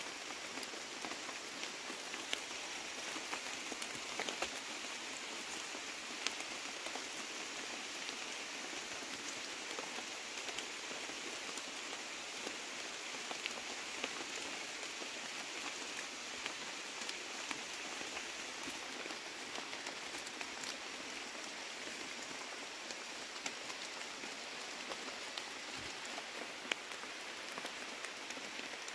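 Steady patter of rain falling on forest foliage, with many small drips landing at random.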